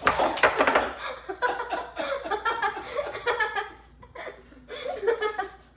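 Clattering and clinking, like dishes or cutlery, with a person laughing over it; loudest in the first second or so.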